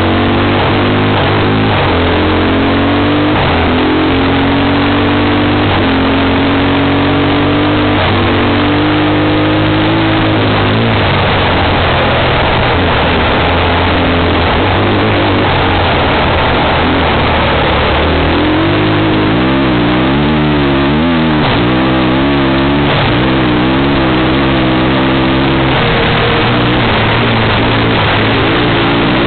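Motorbike engine running hard at speed, its pitch climbing in steps as it pulls through the gears, and later rising and falling quickly as the throttle is worked, over heavy wind and road noise.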